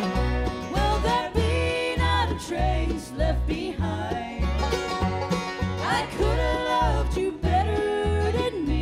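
Live bluegrass band playing: banjo, fiddle, guitar and upright bass, with women singing over a bass that keeps a steady beat of about two notes a second.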